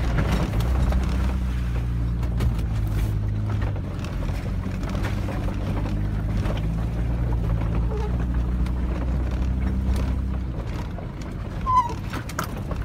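Engine of a four-wheel-drive truck running at low speed, heard from inside the cab as it crawls over a rocky dirt track, with scattered knocks and rattles from the rough ground. The low engine hum drops off about ten and a half seconds in, and a short squeak comes near the end.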